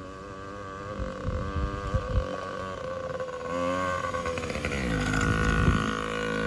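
Yamaha PW-50's small 49cc two-stroke single-cylinder engine running under throttle as the mini dirt bike comes closer, growing steadily louder. The revs climb briefly a little past halfway, then the pitch drops about five seconds in as the bike slows.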